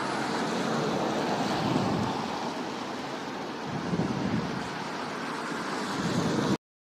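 Cars passing on a wet road: tyres hissing on the wet asphalt, rising and falling as the cars go by, then cutting off suddenly near the end.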